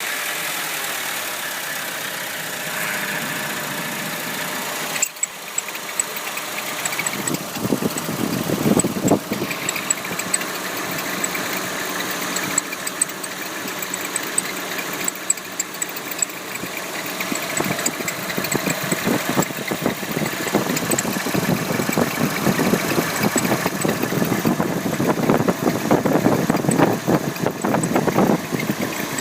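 Opel Astra J engine running at idle, with a squeak coming from the engine compartment.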